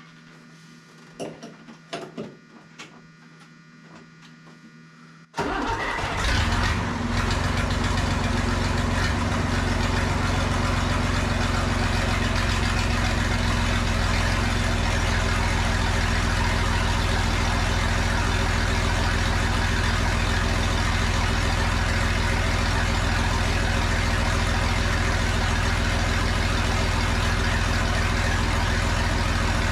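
John Deere 3155 tractor's six-cylinder diesel engine starting suddenly about five seconds in, rising briefly, then settling into a steady idle. This is its start on six new injectors after the injector lines were bled.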